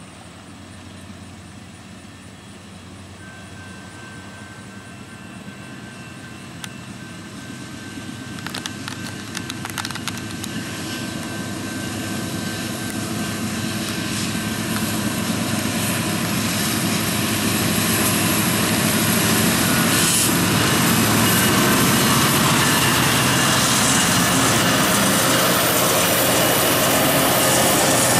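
Diesel freight locomotives, an SD70ACe, an SD70M and a GE AC44CW, approaching and passing with engines running, their rumble growing steadily louder for about 18 seconds and then holding as the units roll by. A few sharp clicks come about 8 to 10 seconds in.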